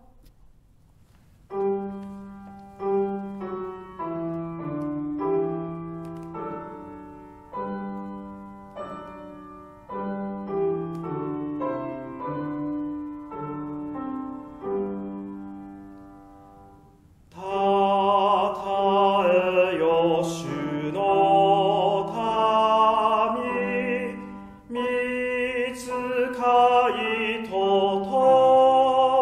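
Piano playing a hymn introduction, note by note, then a man singing the children's hymn with the piano from about seventeen seconds in.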